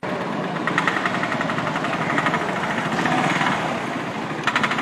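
Auto rickshaw engine running with a rapid, rattling chug as the three-wheeler drives slowly past.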